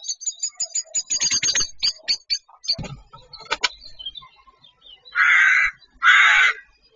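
A common blackbird's rapid, clicking alarm chatter as it attacks a little owl, with a thump near the three-second mark. Then two loud, harsh screeches of about half a second each come from the little owl and the blackbird it has seized.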